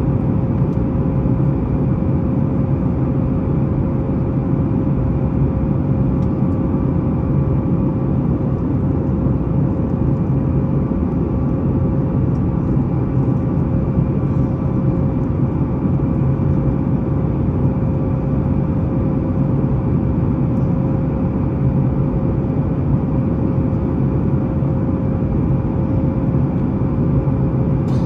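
Boeing 737-9 MAX's CFM LEAP-1B turbofan engines and airflow heard from inside the passenger cabin: a steady, loud drone with a constant hum tone.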